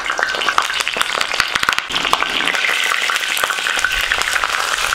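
Hot groundnut oil sizzling and crackling under banana-leaf-wrapped chicken parcels frying on a dosa griddle.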